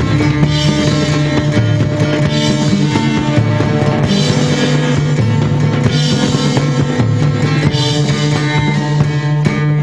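A 1968 psychedelic rock recording playing loud and dense: a full band holding a low sustained note, with a bright accent recurring about every two seconds.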